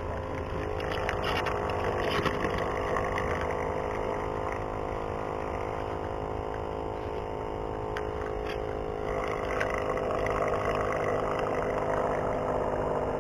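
A motor engine running steadily, its tone changing about nine seconds in.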